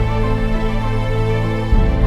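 Background music: slow instrumental with long held notes, a new low note coming in near the end.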